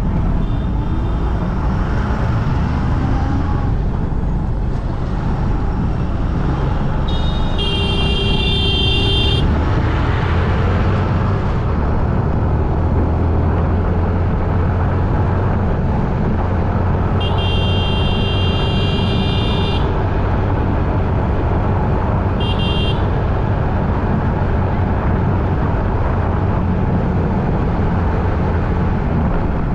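Steady road traffic rumble with vehicle horns honking over it: two long honks of about two seconds each, about eight and eighteen seconds in, then a short toot and another at the very end.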